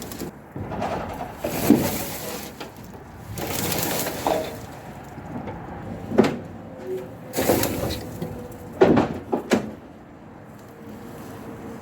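Irregular knocks and thuds of heavy objects being handled, a handful of sharp ones spaced a second or so apart in the second half.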